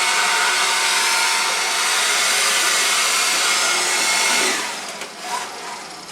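A steady, loud rushing noise of a blower-type motor, which drops away about four and a half seconds in.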